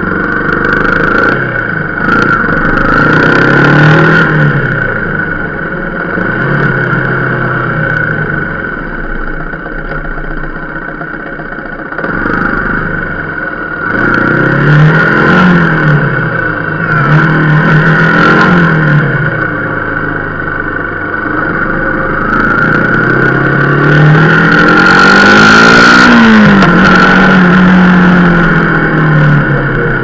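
Motorcycle engine under way, pulling away and easing off about five times, its pitch climbing with each pull and dropping back. The longest and loudest pull comes near the end.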